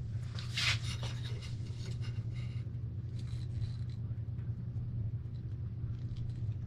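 Hands turning and rubbing a photomultiplier tube wrapped in black vinyl electrical tape, giving soft, scattered rubbing and scuffing noises, the loudest a short scrape under a second in. A steady low hum runs underneath.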